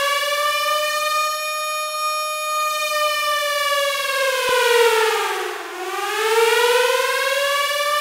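Air-raid siren wailing: a held high tone that falls away about five seconds in, then climbs back up to the same pitch.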